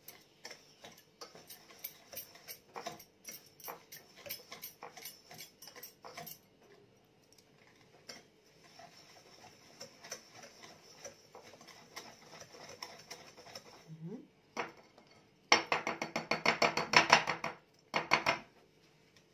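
Hand wire whisk beating ghee and sugar in a glass bowl, the wires clicking and scraping against the glass as the sugar is worked into the fat to dissolve it. Near the end the whisking turns faster and louder, a run of rapid clicks for about three seconds.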